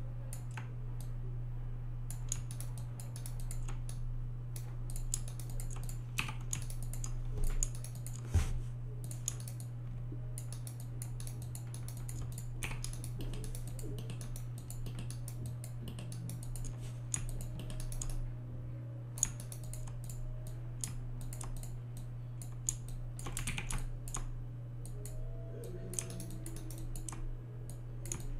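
Computer keyboard keys and mouse buttons clicking in irregular flurries over a steady low hum: a 3D modeller working the keys and mouse.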